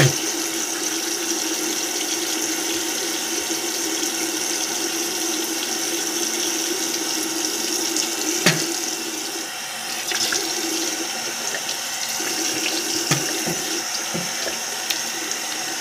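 Bathroom sink tap running steadily into the basin, with a brief sharp click about eight and a half seconds in and a few faint knocks.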